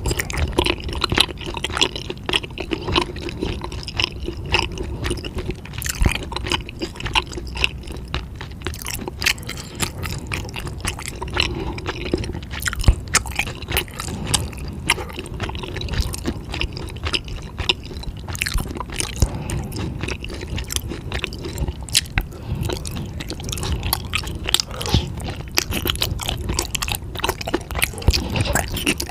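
A person chewing food close to the microphone: wet, squishy mouth sounds with many small clicks and smacks, over and over.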